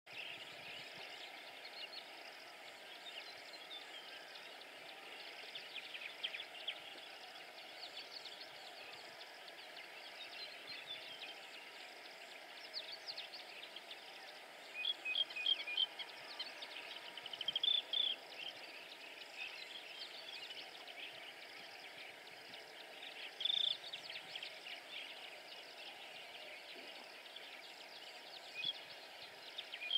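Wetland ambience of small birds chirping and twittering over a steady faint hiss, with louder bursts of quick chirps about halfway through and again a few seconds later.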